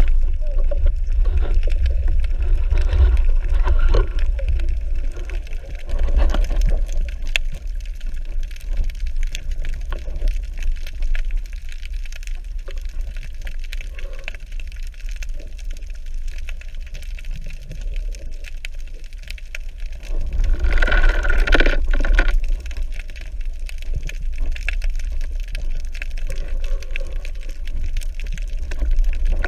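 Underwater sound through a diving camera's housing: a steady low rumble of moving water with faint gurgling, and a louder rush of bubbling noise about two-thirds of the way through.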